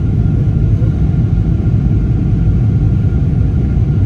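Steady low rumble of a Boeing 777-300ER airliner's engines and airflow, even throughout, with a faint thin steady whine above it.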